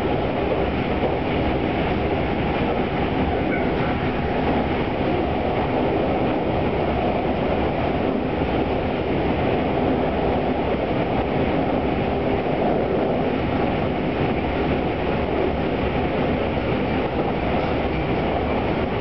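Tobu 200 series limited express running at a steady speed, heard from the vestibule deck: continuous running noise of wheels on rail and traction motors, the motors and bogies being ones reused from the 1720 series DRC.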